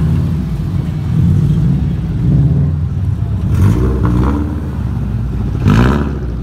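Car engine running close by at low speed, revved up and back down a couple of times about midway. A brief, louder burst comes near the end.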